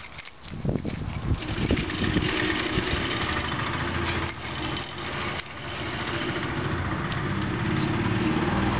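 Car engine running steadily, a low hum that grows louder toward the end. Scattered knocks and rustles of handling at first.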